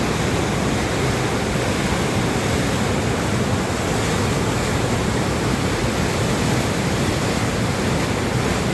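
Waterfall rushing, a steady, even roar of falling water with no let-up.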